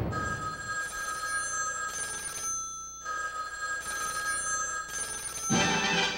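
An electric bell ringing in two long rings of about two and a half seconds each, with a short break between them. Orchestral music comes in near the end.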